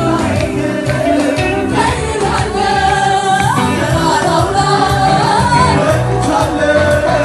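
Ethiopian gospel mezmur sung by a mass choir over amplified backing music with a steady beat.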